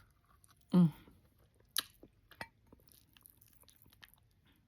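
Close-miked mouth sounds of a person eating oxtails: sparse wet chewing and lip smacks, with a few sharper clicks around two seconds in. A short voiced sound comes about a second in.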